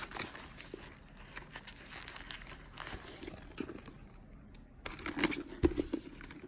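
Packaging crinkling and rustling as a new handbag is handled and unwrapped, in irregular crackly bursts. It grows busier and louder near the end, with one sharp knock.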